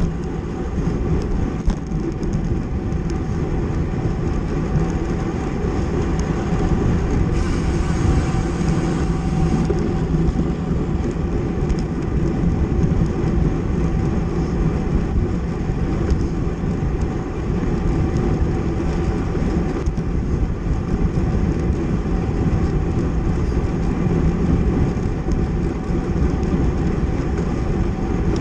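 Steady rush of wind and road noise from a racing bicycle at speed: tyres on pavement and drivetrain whir under wind buffeting the microphone, with a brief brighter hiss about seven seconds in.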